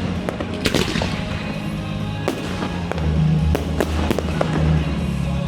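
Fireworks going off in sharp bangs every half second or so, one trailing into crackle about a second in, over loud music with a heavy low bass.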